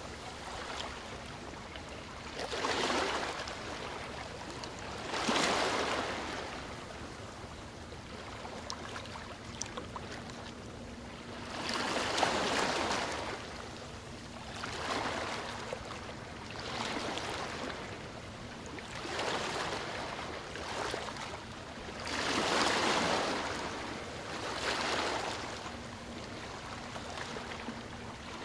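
Small waves washing onto the Elbe riverbank, a rush that swells and fades every two to three seconds. A faint steady low hum runs underneath.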